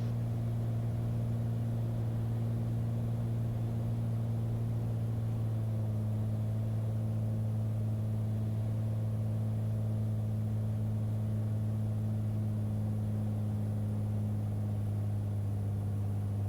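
Steady low drone of a light piston airplane's engine and propeller in the cockpit on final approach, with props set forward and full flaps, unchanging throughout.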